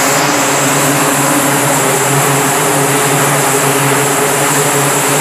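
E-2 Hawkeye's twin T56 turboprop engines running with their eight-bladed propellers turning: a loud, steady drone with a low propeller hum and a high turbine whine.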